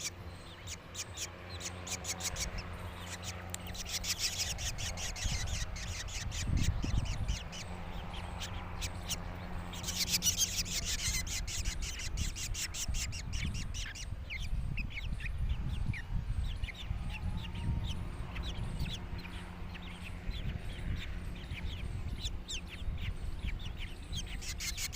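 Birds calling: a dense run of rapid, harsh chirps that swells around 4 seconds in and again about 10 seconds in, over a steady low hum.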